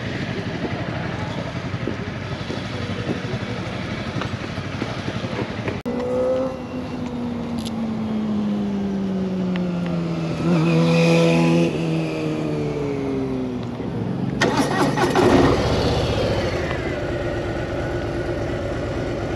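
Motorcycle engines running, then a Harley-Davidson Street Bob 114's Milwaukee-Eight V-twin ridden at walking pace, its note slowly falling as it rolls. Near the end it settles to idle after pulling up.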